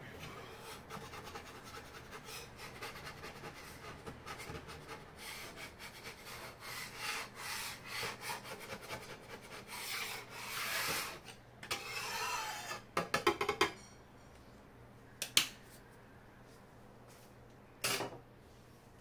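Irregular rubbing and scraping strokes that build up over about fourteen seconds, then a quick rattle and two sharp knocks a couple of seconds apart.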